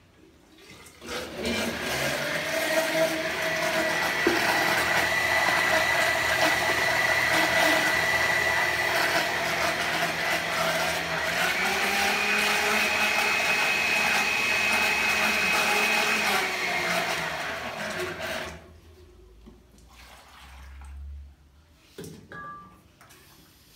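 An electric mixer whirring in a bucket of water, steady for about seventeen seconds. Its pitch steps up about halfway through and drops back shortly before it stops.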